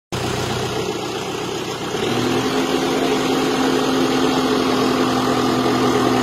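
Deutz-Fahr tractor engine running while its front loader raises the bucket under hydraulic power. About two seconds in, a steady higher tone joins the engine hum and the sound grows slightly louder.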